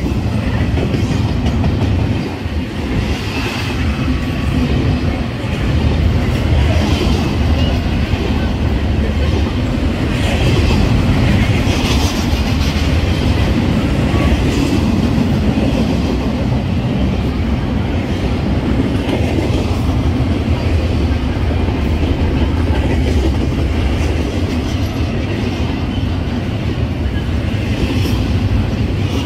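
Double-stack intermodal freight train rolling past at close range: a steady rumble of wheels and cars on the rails.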